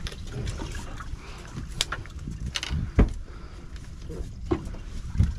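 Scattered clicks and knocks of a conventional fishing reel and rod being handled on a boat, the sharpest about three seconds in, over a steady low rumble.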